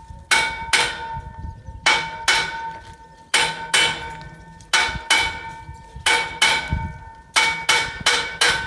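A hammer striking steel scaffold parts to knock them into place: sharp metallic blows in quick pairs and triples, about fourteen in all, each leaving a ringing tone.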